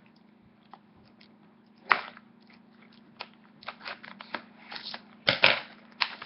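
Scissors and the plastic shrink-wrap of a trading-card booster box being cut and pulled open: a sharp snip about two seconds in, then irregular crinkling and crackling that grows busier toward the end.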